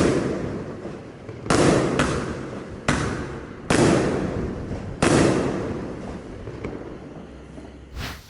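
Wolke 7 30 mm battery firework (a 25-shot cake) firing its shots: about five sharp bangs in irregular succession, each followed by a fading rumble, then a last faint pop near the end.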